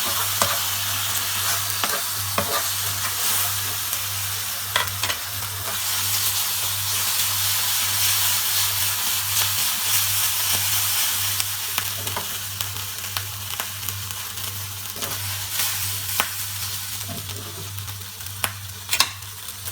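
Basa fish fillets and ginger-garlic paste sizzling in hot oil in a frying pan, the sizzle slowly easing toward the end. A few sharp clicks of a utensil against the pan break through it, over a steady low hum.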